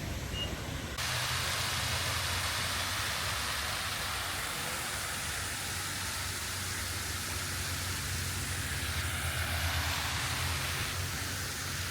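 Steady outdoor background noise, a rushing hiss with a low hum beneath it, that changes abruptly about a second in.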